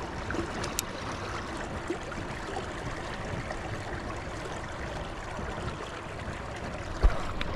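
Steady rushing, gurgling noise of river water, with a single low knock about seven seconds in.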